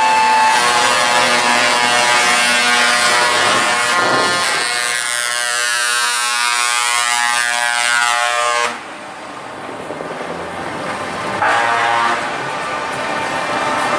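Parading trucks sounding multi-tone air horns: a long blast over running diesel engines, cut off sharply about nine seconds in, then a short second blast a few seconds later.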